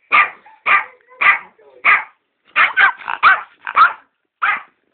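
Yorkshire terrier barking in short, sharp barks: four about half a second apart, then a quick run of five, then one more. The barks are aggressive guarding of a box of sweets.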